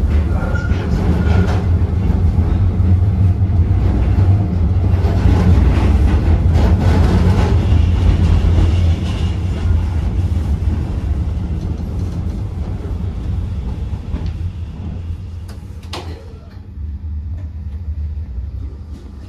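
Tram running on its rails, heard from inside the car: a steady low rumble that grows quieter over the second half, with a single sharp knock near the end.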